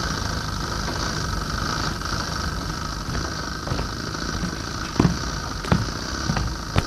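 Steady droning background noise with a low hum, and about four footsteps on a wooden stage floor in the last two seconds, roughly 0.6 s apart.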